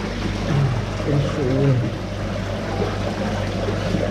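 Beach ambience: an even wash of noise like surf over a steady low hum. Indistinct voices rise briefly between about half a second and two seconds in.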